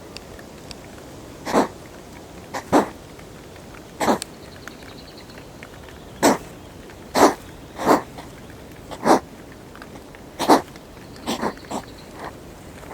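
Hedgehogs huffing and puffing at each other in a fight: about ten short, sharp bursts of breath at uneven intervals, one every second or so.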